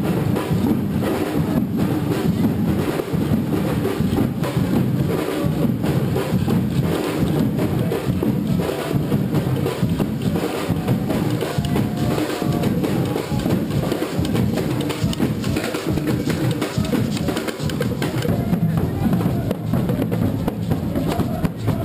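Live carnival street drumming: a group of large hand drums beating a loud, steady, driving rhythm.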